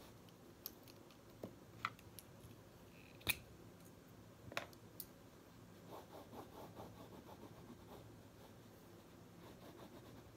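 Pen on paper: a few sharp clicks and taps in the first five seconds, the loudest about three seconds in, as a red pen is handled and set down on the notebook, then soft scratching strokes of a pen writing on notebook paper.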